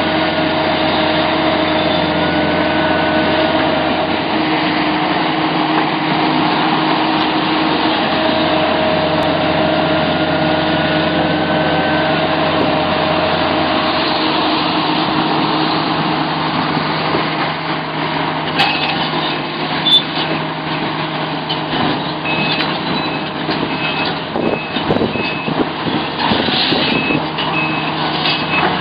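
Sumitomo SH700LHD-5 heavy excavator's diesel engine running steadily under load, with a hydraulic tone that rises in pitch now and then. In the second half the sound gets rougher, with scattered knocks and a short high beep repeating evenly, like a machine's travel alarm.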